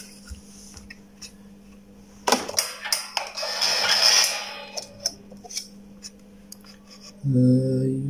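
Hands handling wires and crocodile-clip test leads: a run of clicks and a scratchy rustle, then a few scattered clicks, over a steady low hum.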